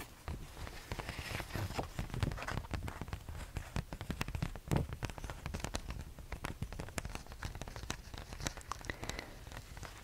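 Close-up crackling and quick clicks of a laminated fact card being handled next to the microphone.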